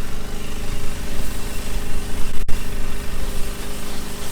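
Large engine running steadily at a constant speed, with a momentary gap in the sound about halfway through.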